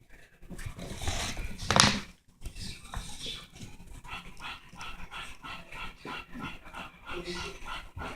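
Basset hounds at play: a loud burst of noise a couple of seconds in, then quick, rhythmic dog panting, about three to four breaths a second.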